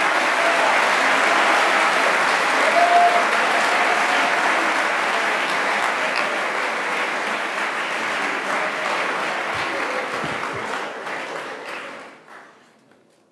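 Audience applauding: a long round of clapping that starts all at once and dies away near the end.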